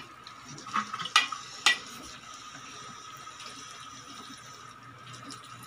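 A few sharp clinks of a bottle and a stainless steel pan in the first two seconds, then water poured steadily from a plastic bottle into the pan of cooking vegetables.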